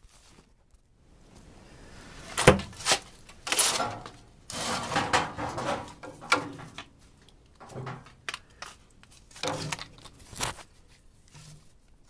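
Sheet-metal parts inside a furnace cabinet being handled: a series of sharp knocks and clunks, with a longer rasping scrape in the middle.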